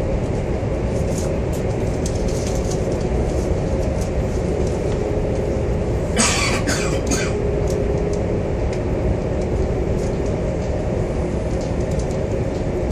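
High-speed train running, heard from inside the passenger car: a steady low rumble with a faint electric hum. About six seconds in comes a brief cluster of sharp clicks and rattles.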